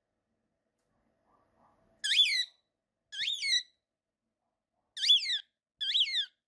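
Cockatiel whistling four short calls, each rising then falling in pitch, in two pairs.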